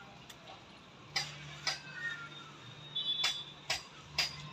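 Domestic pigeons pecking on a concrete floor: irregular sharp taps of their beaks, one or two a second, with a faint high chirp or two in the background.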